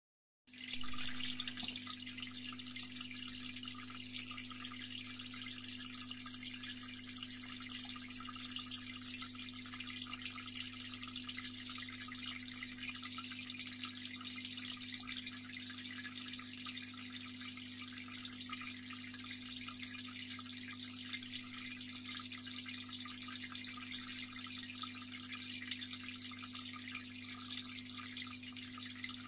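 Steady bubbling and trickling of water in a red-eared slider turtle's aquarium tank, over a low, even hum from the tank's pump. It starts abruptly about half a second in.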